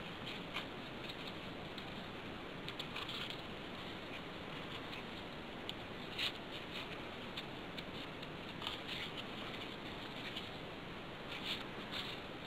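Folded paper origami modules being slid by hand onto the pockets of a paper ring: faint scattered paper rustles and small clicks over a steady hiss, a little louder about halfway through and again near the end.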